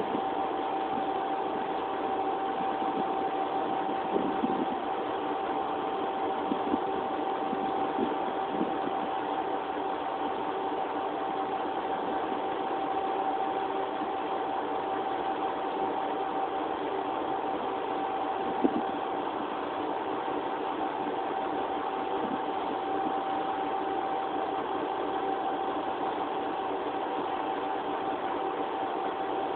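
Nagara 300-type diesel railcar's engine idling steadily while the railcar stands waiting to depart, with a steady high whine over it and a few brief light knocks.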